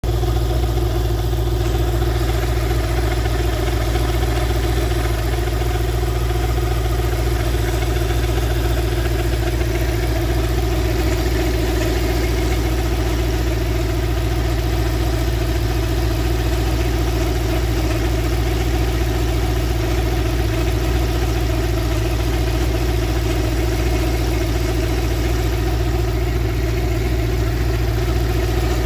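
Engine idling steadily with a running noise that the owner suspects comes from the crankshaft pulley.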